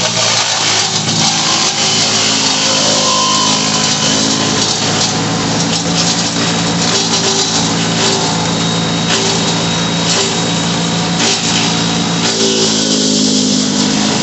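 Wood chipper chewing through wood: a loud, dense grinding and crackling over its running engine, which eases off near the end as the engine carries on alone.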